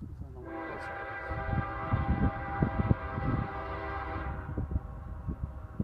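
Diesel freight locomotive's air horn sounding one long blast, several tones together in a chord, as the train approaches a level crossing. It fades out near the end.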